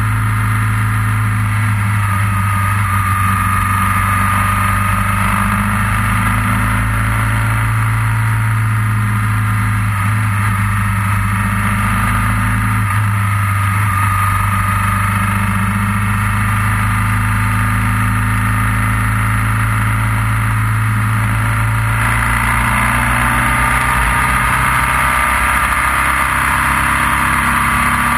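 Motorcycle engine running steadily while riding, over a steady hiss of wind and road noise; the engine note shifts about twenty-two seconds in.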